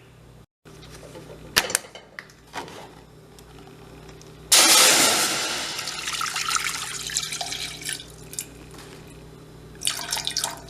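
Water poured into a saucepan: a sudden rushing pour about four and a half seconds in that tapers off over a few seconds. There are a few light knocks and clicks of handling before and after it.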